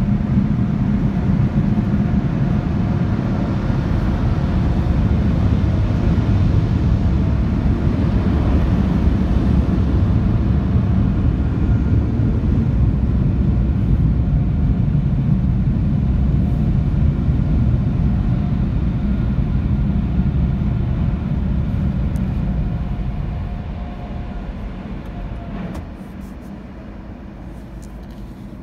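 Car wash air dryer blowers running with a steady, loud rumbling rush, heard from inside the car. The noise fades away over the last few seconds as the car pulls off.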